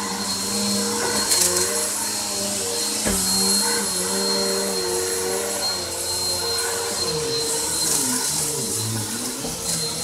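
Upright vacuum cleaner running steadily, its motor note shifting a little as it is pushed back and forth.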